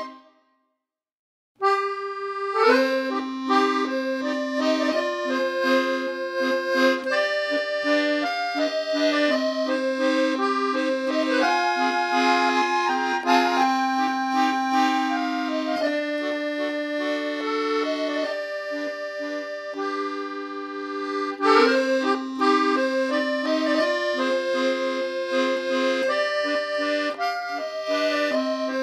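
Background accordion music with a melody over sustained chords. It cuts out briefly near the start, then starts again.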